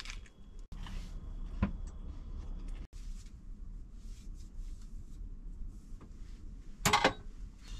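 Kitchen things being handled at a small counter: scattered light knocks and clinks of a frying pan and dishes over a low steady hum, with one louder clatter about seven seconds in.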